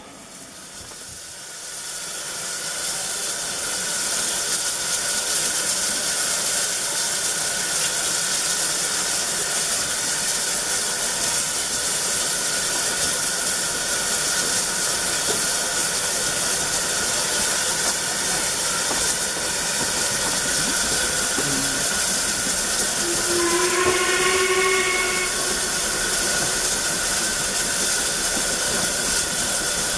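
Steam locomotive with a steady loud hiss of steam, and a single whistle blast of about two seconds roughly three-quarters of the way through.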